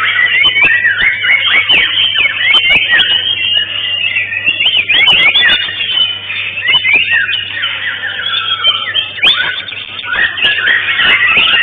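White-rumped shama (murai batu) singing in competition: rapid, varied whistles and sliding notes, overlapping with other birds singing at the same time, over a steady low hum.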